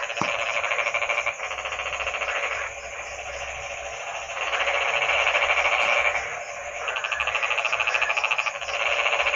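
Frogs croaking in a chorus: bouts of rapid, pulsed croaks, about ten pulses a second, each lasting one to two seconds and overlapping as one frog stops and another starts.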